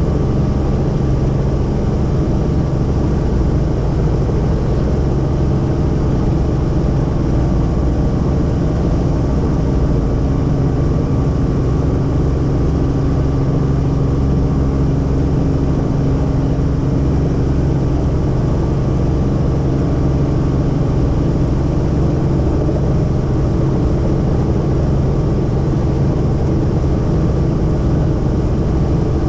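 Helicopter in flight, heard from inside the cabin: a loud, steady drone of engine and rotor with a constant low hum and a faint high whine.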